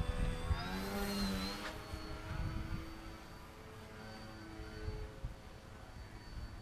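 Engine of a Skeeter 40 radio-controlled model airplane running as the plane passes overhead. Its pitch falls as it goes by in the first couple of seconds, then settles to a fainter steady note as the plane flies off.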